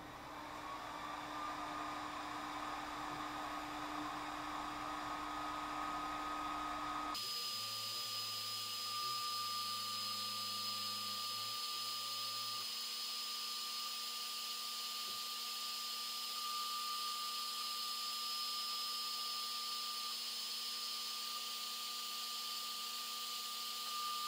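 A 5 W diode laser engraver (Algolaser DIY kit) running while it cuts MDF: a steady fan-like whoosh with a thin whine that creeps up slightly in pitch. About seven seconds in, the sound jumps higher and brighter as the recording is played four times faster, then runs on steadily.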